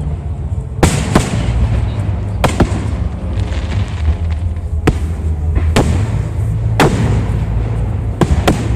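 Fireworks shells bursting overhead: about nine sharp bangs at irregular intervals, some in quick pairs, over a steady low rumble.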